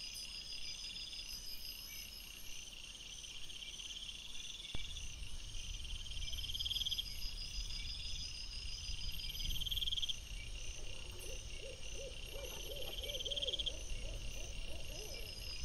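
Night insects, crickets or bush-crickets, chirping in steady repeating pulsed trains. From about five seconds in, a low rumble of wind noise sits underneath. Near the end a lower, wavering animal call repeats several times.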